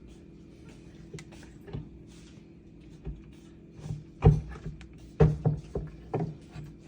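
Hex wrench working in the socket under a jammed garbage disposal to turn it by hand: a series of sharp knocks and clunks, several loud ones in the second half, over a faint steady hum.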